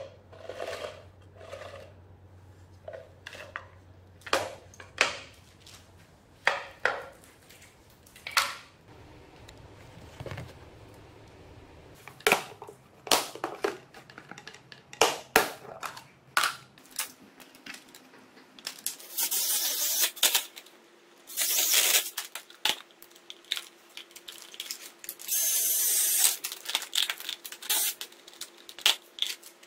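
Hand handling of an aluminium tank chassis and its parts: scattered clicks and knocks of metal pieces being moved and set down, then three longer, louder scraping rasps as a plastic box is worked in the hull.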